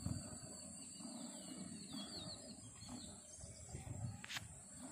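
Milk squirting into a plastic can as a cow is milked by hand, soft thuds about twice a second. Birds chirp briefly about two seconds in over a steady high insect buzz, and a sharp click sounds near the end.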